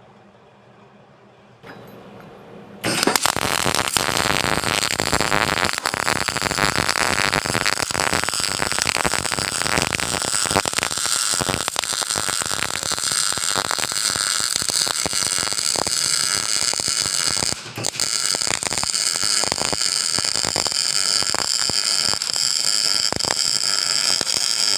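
MIG welding arc crackling steadily while a vertical weld is run downhill. It starts about three seconds in and cuts out for a moment about two-thirds of the way through before going on.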